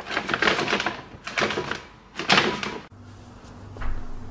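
Brown paper delivery bag rustling and crinkling in several bursts as it is handled and opened. It cuts off abruptly about three seconds in, leaving a quiet low hum.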